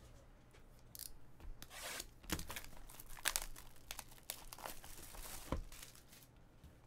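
Clear plastic shrink-wrap being torn and peeled off a cardboard trading-card box, crinkling and crackling irregularly from about a second in until near the end.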